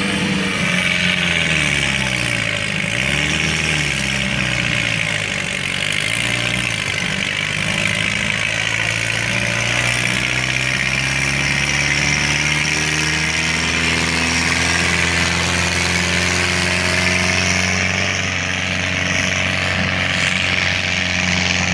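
A competition pulling tractor's engine at full load, dragging a weight-transfer sled. It holds a steady high pitch after dipping and rising twice in the first few seconds.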